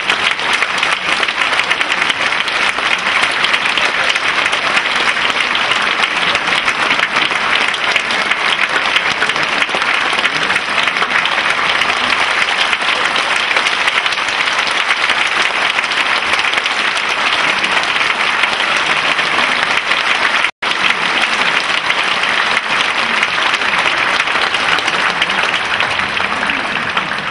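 Concert audience applauding steadily, with a momentary dropout in the sound about twenty seconds in and a slight fade near the end.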